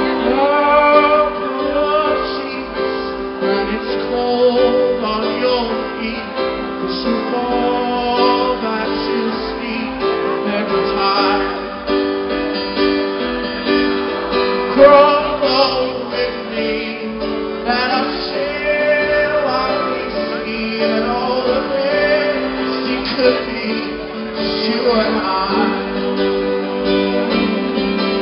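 Live band music with singing and guitar, heard from the audience with the low end thin.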